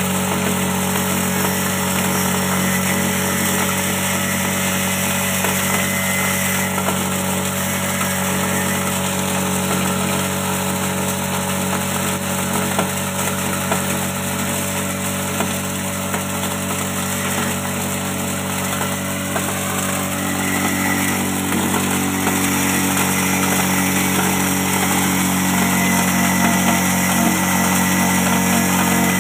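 Small electric-motor-driven chopper/grinder mill running steadily with a constant humming drone while grinding rice husks.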